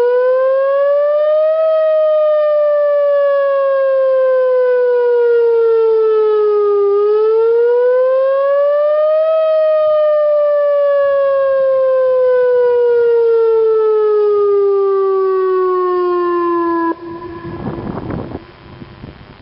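Whelen WPS-2904 electronic outdoor warning siren sounding a test wail: one steady tone that rises and falls slowly in pitch, a short climb and a longer fall, about eight seconds a cycle. Near the end the tone cuts off suddenly, leaving a brief rough rush of noise.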